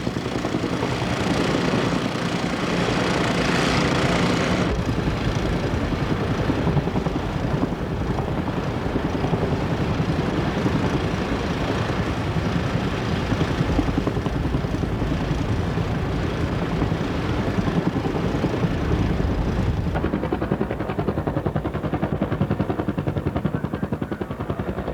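Helicopter rotor and engine noise, a steady fast chop, sounding brighter for the first few seconds and duller near the end.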